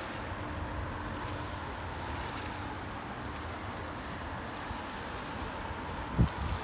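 Steady outdoor noise with a low rumble, like wind and water, and a single short thump near the end.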